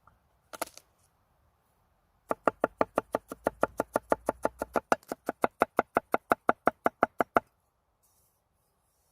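Knife chopping rapidly on a cutting board, a fast even run of about six strokes a second for about five seconds, after a single knock.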